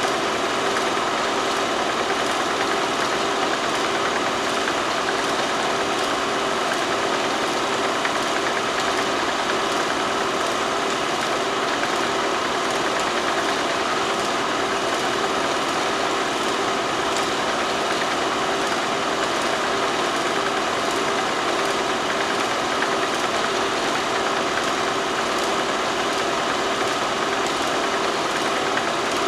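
Steady hiss with a constant hum on the soundtrack of silent film footage. It is noise from the film transfer, not any sound of the work on screen.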